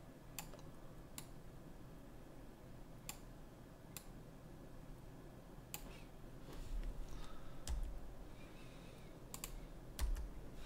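Computer keyboard keys and mouse buttons clicking: about ten quiet single clicks spread irregularly, with two quick pairs near the end.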